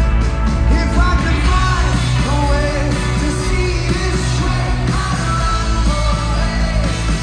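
Rock band playing live with a lead vocal singing over the full band, heavy in the bass.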